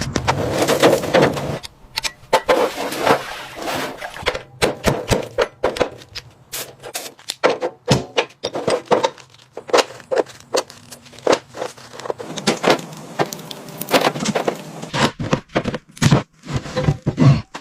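Irregular clanks, knocks and scrapes of metal parts and hand tools being worked, with many sharp clicks at uneven intervals.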